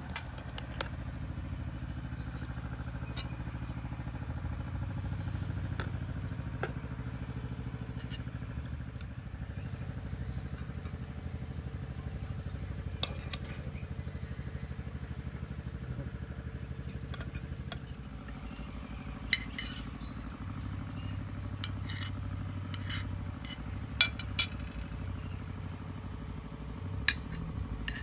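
Forks scraping and clinking on ceramic plates and a glass salad bowl during a meal, in scattered sharp clinks. A steady low hum runs underneath.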